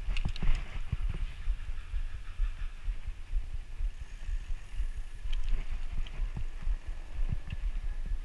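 Uneven low rumble and thumping of wind buffeting and ride vibration on an action camera's microphone as a bicycle rolls along a rough, patched street, with a few light rattles from the bike.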